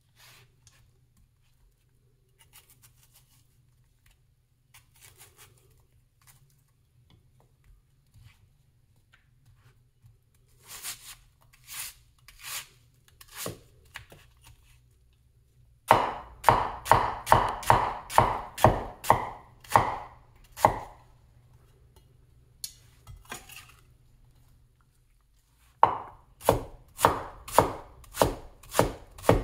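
Big vintage Chinese cleaver cutting a red onion on a wooden cutting board. Soft, separate slicing strokes at first, then two runs of fast, even chopping at about three strokes a second, each stroke knocking on the board, with a pause of a few seconds between them.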